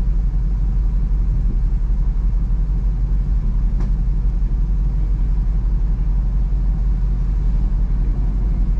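SRT SUV's V8 engine idling steadily, a constant low rumble inside the cabin, with one faint click about four seconds in.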